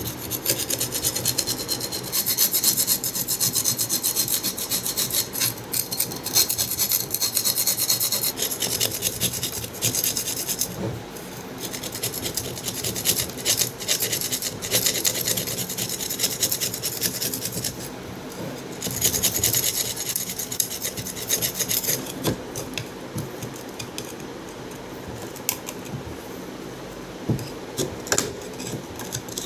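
Fast rasping, rubbing strokes of hand scraping or sanding on the parts of an old ceiling fan being cleaned. The strokes come in spells of several seconds with short pauses, and grow lighter toward the end, where a few sharp clicks are heard.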